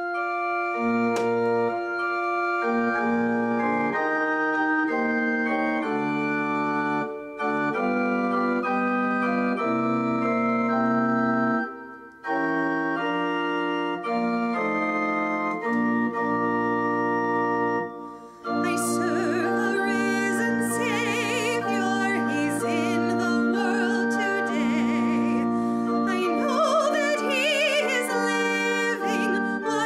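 Organ playing a hymn introduction in slow, held chords, with short breaks between phrases. About two-thirds of the way through, a solo woman's voice comes in, singing with vibrato over the organ.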